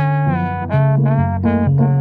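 Trombone and piano playing jazz: the trombone plays a quick phrase of short notes over the piano's low bass line.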